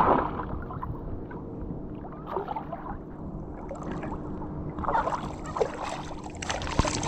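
Water splashing as a hooked flounder thrashes at the surface, loudest right at the start, then irregular sloshing and splashes close to the microphone as the fish is handled at the waterline.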